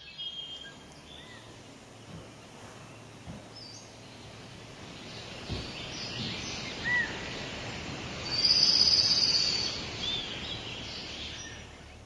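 Outdoor bush ambience with scattered bird calls: short chirps and whistled notes over a steady background hiss, with a louder, high trill about eight and a half seconds in.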